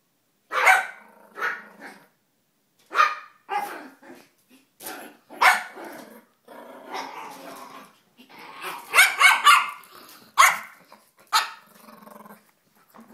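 Small dogs barking in play: about a dozen short, sharp yaps in spurts, with a quick run of several barks about nine seconds in, and growling in between.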